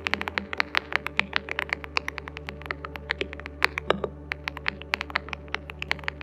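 ZEN 65, a 65% custom mechanical keyboard, being typed on quickly: a steady, uneven stream of key clacks, several per second, with a few deeper strokes among them.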